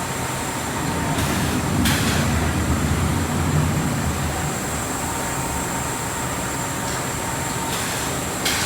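Machinery of a cooling-pad production line running: a steady mechanical rumble with a faint high steady tone, and a few brief sharp clicks.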